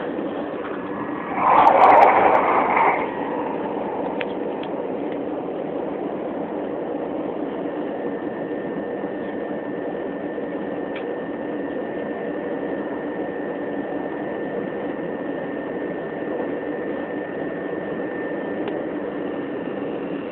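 Interior running noise of a Class 375 Electrostar electric multiple unit at speed: a steady rumble with a faint steady whine. About a second and a half in, a louder, harsher burst lasts under two seconds.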